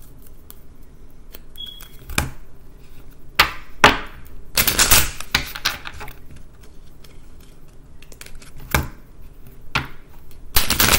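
A deck of oracle cards shuffled by hand: scattered single clacks, and one longer run of clattering cards about five seconds in.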